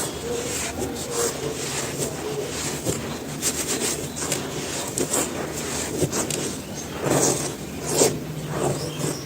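Dry pure cement pieces being crumbled and crushed: a steady run of gritty crunches and scrapes, with a few louder crunches near the end.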